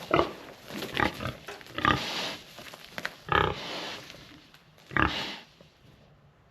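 Pigs grunting, a short call every second or so, stopping about five and a half seconds in.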